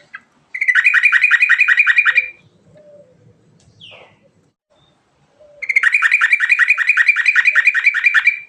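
Yellow-vented bulbul (trucukan) singing two long, rapid trills of evenly repeated notes, about seven a second; the first lasts under two seconds and the second starts a little past halfway and is longer.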